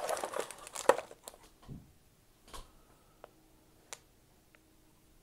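Plastic soft-bait bag crinkling as it is picked up and handled for about a second, then a few soft rustles and light taps.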